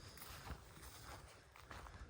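A few faint, soft footfalls of a person on foot on the trail.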